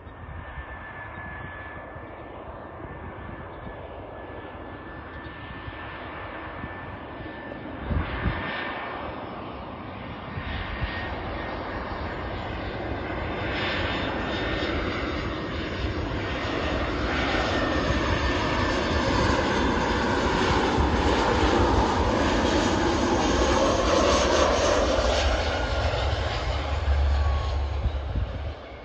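Jet engines of an easyJet Airbus A320-family airliner on final approach, growing steadily louder as it comes in to land. A falling engine whine sounds in the last third as it passes and nears touchdown. A brief thump comes about 8 seconds in.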